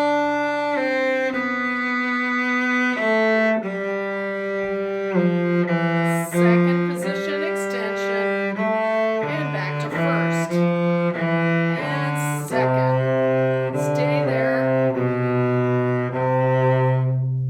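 Cello playing a slow stepwise melody, shifting between first position, second position and extensions on the lower strings, over a lower part held underneath. The last note dies away near the end.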